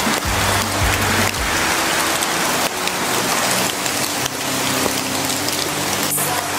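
Steady rain noise, dense and even, with faint sustained music notes underneath.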